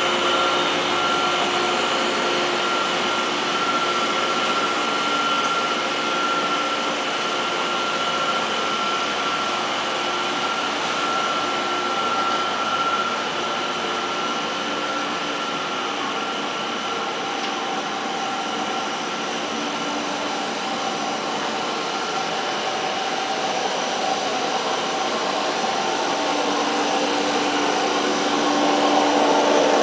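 PVC foam board extrusion line running: a steady whirring machine noise with several constant whining tones, growing louder near the end.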